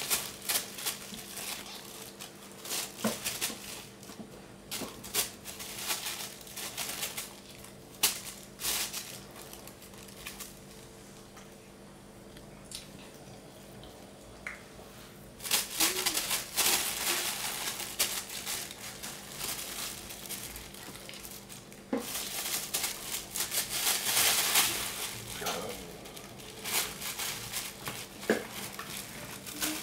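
Plastic bag crinkling and rustling as kittens pounce on it and burrow into it, in irregular bursts. It goes quieter for a few seconds near the middle, then comes back in longer, busier bouts of crinkling.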